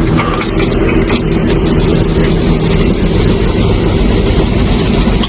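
A heavy engine running steadily with a constant low hum.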